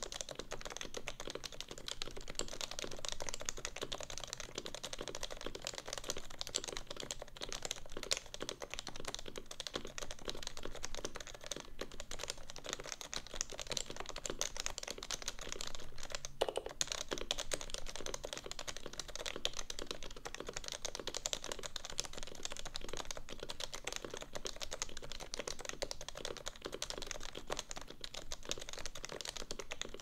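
Fast, continuous typing on the alpha keys of a Topre electro-capacitive keyboard: a Realforce 86U's PCB, stock steel plate and OEM variable-weight rubber domes with unlubed housings, built into a Sho SRX aluminum case with no foam. A dense, even stream of keystrokes, with one harder stroke about halfway through.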